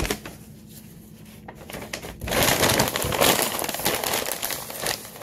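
Shopping bag crinkling loudly as a hand rummages through it, starting a little before halfway and running on to near the end.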